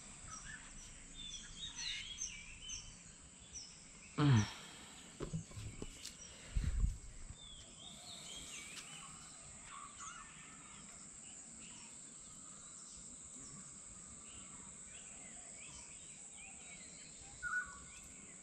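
Morning bird chorus: many birds chirping and whistling, with a quick run of short repeated chirps at the start, over a steady high-pitched insect drone. A louder call falling in pitch sounds about four seconds in, and a low thump a few seconds after it.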